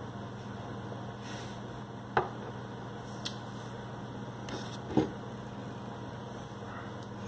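Steady low electrical hum, broken by two sharp knocks about two and five seconds in and a faint click between them; the second knock comes as a ceramic mug is taken up from the table.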